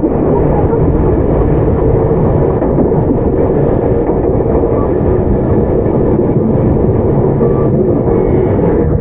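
Inside a Tokyu 9020 series electric commuter train under way: a steady, loud rumble of wheels on rail, with a faint steady hum from the running gear.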